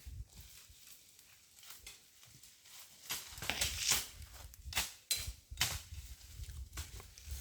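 A machete slashing and chopping through brush and leaves: irregular swishing, crunching strokes, coming thicker from about three seconds in, over a low rumble.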